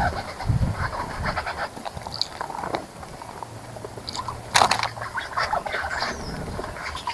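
Birds bathing in a garden bird bath: irregular bursts of water splashing and flicking, with a few short high chirps, and one louder splash about four and a half seconds in.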